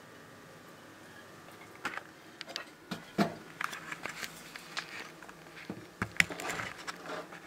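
Monitor lizard moving over loose soil substrate: irregular scratching, rustling and light knocks that start about two seconds in.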